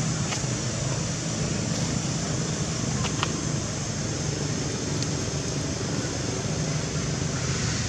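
Steady outdoor background noise: a constant low rumble under a continuous high hiss, with a few faint brief clicks, the clearest about three seconds in.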